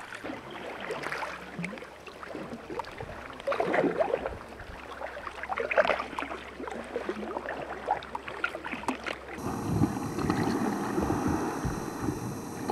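Sea kayak paddle strokes splashing in the water at an irregular pace. About three-quarters of the way through, the sound changes suddenly to a denser, steady noise.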